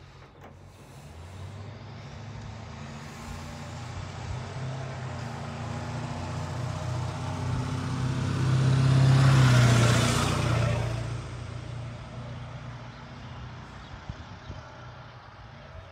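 A motor vehicle driving past: its engine hum and tyre noise build slowly, peak about nine to ten seconds in, then fade away.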